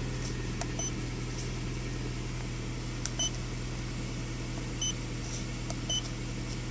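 A 2000 Honda CR-V's four-cylinder engine idling steadily, its random misfire cured by a replacement spark plug. An OBD2 scan tool beeps briefly four times as its buttons are pressed to clear the stored P1399 code.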